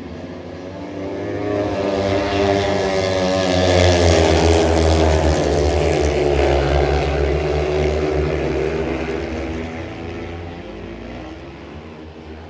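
Speedway motorcycles' 500 cc single-cylinder methanol engines racing past in a heat, the engine note growing louder for a few seconds as the riders slide through the bend, then fading away.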